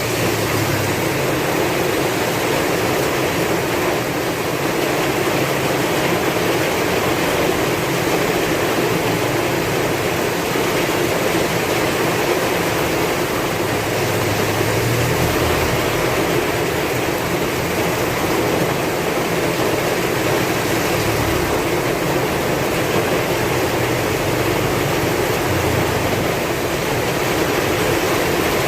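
Heavy rain falling steadily, with strong wind gusting in low swells that come and go.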